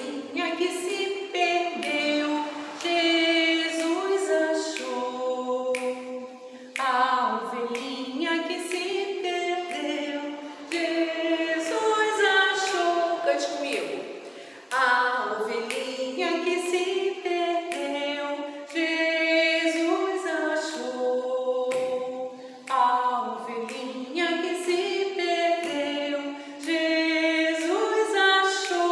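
A woman singing a song unaccompanied, in sung phrases with short breaks between them.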